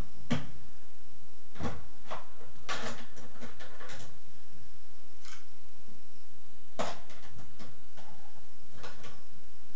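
Irregular plastic clacks and knocks from a toy play kitchen being handled: toy dishes, utensils and little doors bumping, with a busier cluster a few seconds in and another near the end.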